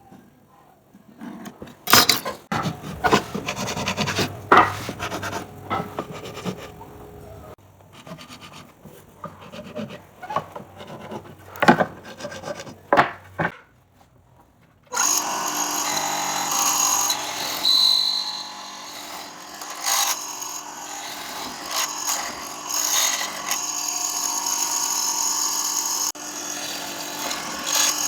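Wooden pieces being handled, knocked and scraped by hand in irregular strokes, then after a brief pause a power tool starts and runs steadily on the wood.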